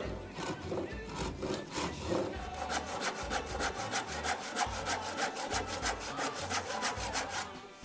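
Handsaw crosscutting a hardwood block held in a vise, in quick, even back-and-forth strokes that stop near the end.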